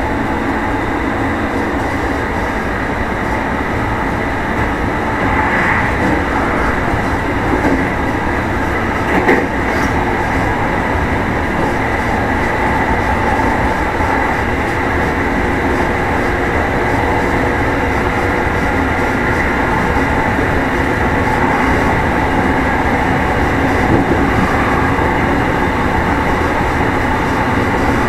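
Running sound inside the Meitetsu 1000 series electric train, motor car Mo 1066, travelling at steady speed: a continuous rumble of wheels on rail with motor hum, and a short sharp knock about nine seconds in.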